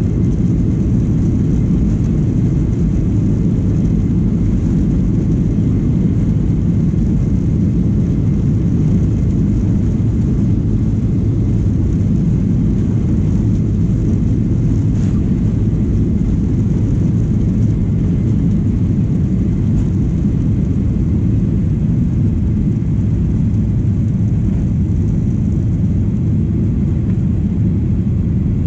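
Steady low cabin rumble of a Boeing 737-800 heard from inside the passenger cabin: its CFM56-7B jet engines and airflow noise, even in level throughout. There is one faint click about halfway through.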